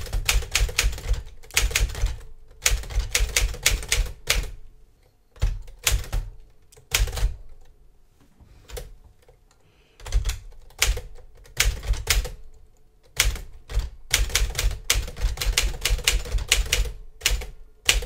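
1956 Smith-Corona Silent-Super manual typewriter being typed on: quick runs of key and typebar strikes against the paper. There is a pause of about two seconds a little before the middle, then steady typing again.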